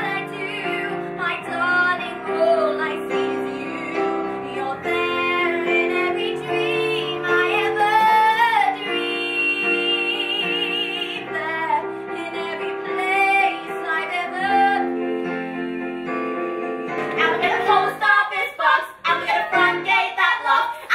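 Women singing a stage song with vibrato over an accompaniment of held chords, with one long held note about halfway through; near the end the singing turns quicker and choppier.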